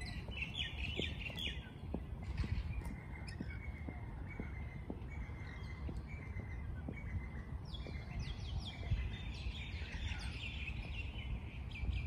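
Rainbow lorikeets chattering in a tree, with short shrill calls in bursts near the start and again from about nine seconds in, and scattered calls between. A steady low rumble lies underneath.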